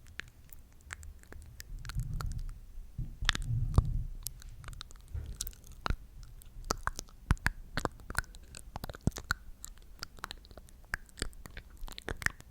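Close-miked ASMR mouth sounds: a run of sharp wet clicks and smacks, with louder low rumbles about two and three and a half seconds in.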